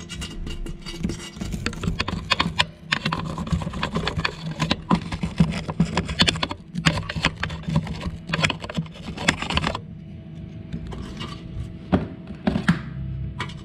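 Homemade steel-wire brush scrubbing and scraping inside the passages of a metal motorcycle-scooter carburetor body, a fast run of scratchy rubbing strokes that stops about ten seconds in. A few sharp clicks follow near the end, over a steady low hum.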